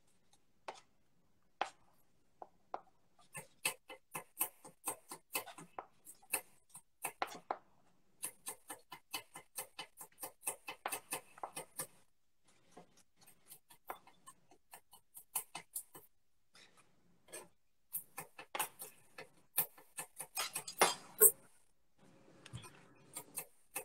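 Kitchen knife chopping garlic on a cutting board: quick taps of the blade on the board, coming in runs of a few strokes a second with short pauses between.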